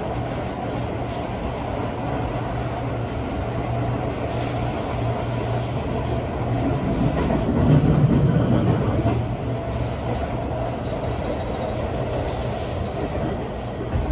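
Cabin noise of a Seibu 40000 series electric train running along the line: a steady low hum with rail rumble, swelling louder for a moment about eight seconds in.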